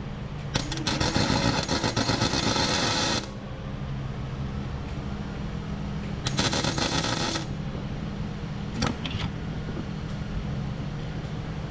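Wire-feed (MIG) welder arc crackling in two bursts, the first about two and a half seconds long and the second about a second, as weld is laid into a broken exhaust manifold bolt in an aluminium cylinder head. A short click follows near the end, over a steady low hum.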